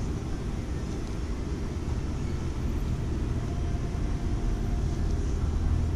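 Wind buffeting the microphone: a steady low rumble that drowns out the quiet peeling of the wet transfer paper.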